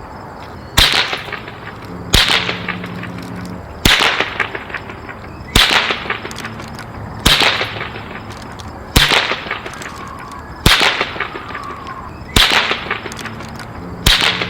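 Electro Bangers flash snaps going off one at a time: nine sharp, loud bangs about every second and a half to two seconds, each trailing off in a brief crackle.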